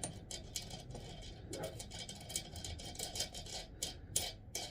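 Light, irregular clicks and small metallic taps of hands working with a wing nut on a toilet cistern's fixing bolt.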